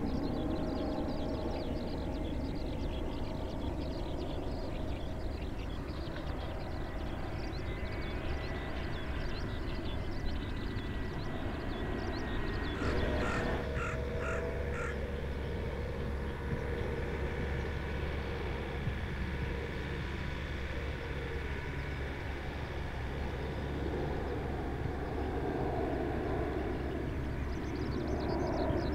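Jet noise from Airbus A330 airliners climbing out overhead, a steady distant rumble. About halfway through, a crow caws four times.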